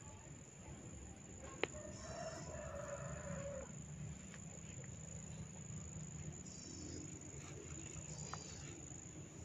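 A single sharp snap of hair being cracked about one and a half seconds in, with a much fainter snap near the end. A drawn-out animal call lasting about a second and a half follows the first snap, and small high chirps come and go over a low background hum.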